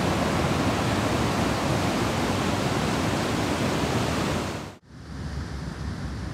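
Ocean surf breaking and washing up a sandy beach: a steady, full wash of waves that cuts off sharply almost five seconds in, giving way to a much quieter low rumble.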